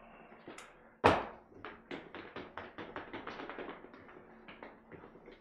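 Whiteboard being wiped clean: a sharp knock about a second in, then a quick run of short rubbing strokes against the board, about four or five a second.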